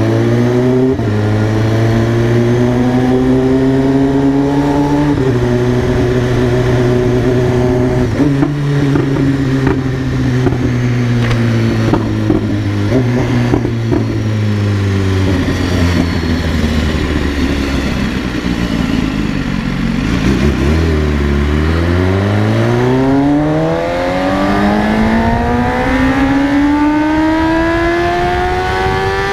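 BMW S1000RR's inline-four engine under way, its pitch jumping up or down in a few sudden steps as gears change. The pitch then sinks slowly as the throttle eases, and from about two-thirds of the way in it climbs in one long, steady rise to high revs.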